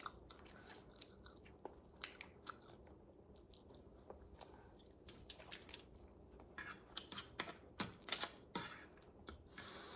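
Close-up eating sounds of someone chewing spicy instant noodles with egg and sausage: soft, irregular mouth clicks and smacks. They are sparse at first and grow busier about two-thirds of the way in.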